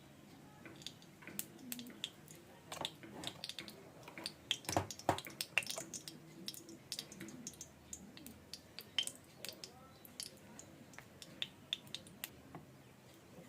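Irregular clinks and taps of metal kitchen utensils, a spoon knocking against a pan or bowl, with a denser, louder run of clinks about four to five seconds in.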